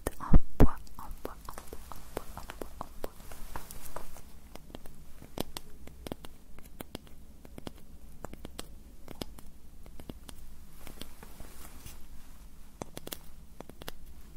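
Close-miked tapping, clicking and light scratching on small objects, typical of ASMR triggers. There are two loud knocks about half a second in, followed by a steady run of soft taps that thins out.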